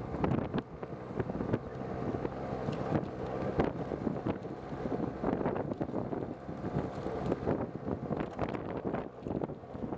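Motorcycle engine running steadily while riding along a dirt road, with wind buffeting the microphone and scattered knocks and rattles from the bumps.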